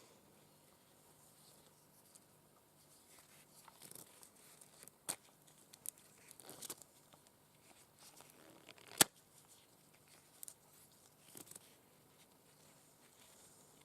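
Long acrylic nails scratching and tapping on a rubber balloon: soft, scattered scrapes and clicks, with one sharp, much louder click about nine seconds in.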